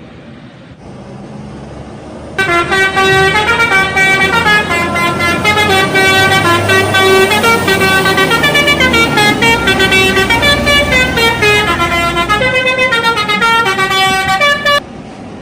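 Bus 'telolet' horn, a set of air-horn trumpets playing a tune of several tones that step up and down, starting about two seconds in and cutting off suddenly near the end. Quieter traffic noise comes before it.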